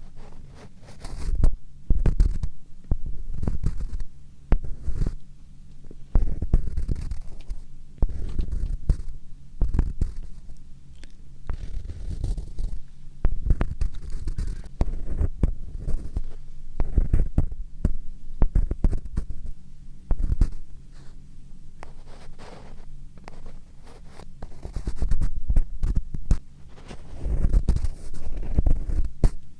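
ASMR scratching on a close microphone, irregular scratching strokes that make a heavy, muffled rumble at the mic.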